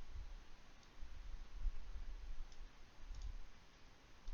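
A few faint computer mouse clicks, spaced irregularly, over a low rumble.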